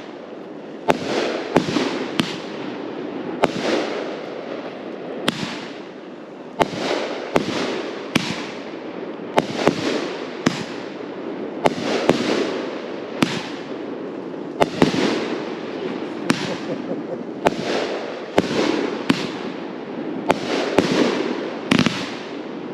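A 25-shot, 500-gram consumer firework cake firing shot after shot, with about one sharp bang a second and a rumbling echo between them. The breaks are hard salutes.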